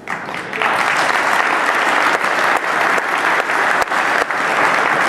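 Crowd applauding: a few claps at first, swelling about half a second in into steady, full applause.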